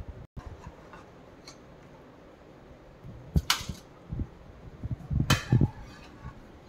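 Metal ladle knocking and clinking against a pressure cooker pot and a steel bowl as soup is ladled out: a sharp clink about halfway through, then a cluster of knocks and clinks near the end.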